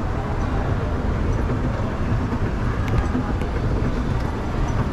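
Moving escalator running with a steady low rumble while being ridden.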